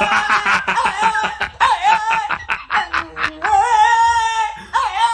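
French bulldog howling along in a high, wavering pitch, its "singing": a few seconds of quick choppy yips and yowls, then long held notes that waver.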